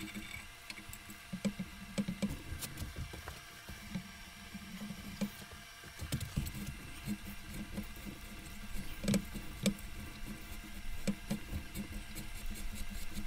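Tap being turned by hand to cut threads in a drilled hole in a cast iron Atlas 10-inch lathe bed: scattered irregular clicks, ticks and knocks of the tap cutting and the holder being worked, with a few sharper knocks, over a steady low hum.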